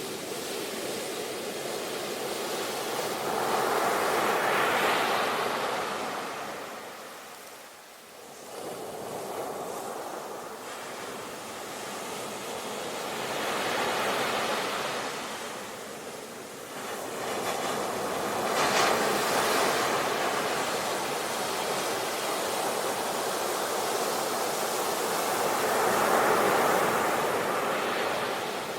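Sea waves washing onto the shore, swelling and breaking four times, with a brief lull about eight seconds in.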